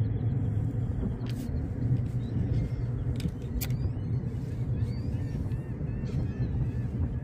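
Steady low rumble of wind buffeting the microphone, with a few sharp clicks and faint high chirps in the second half.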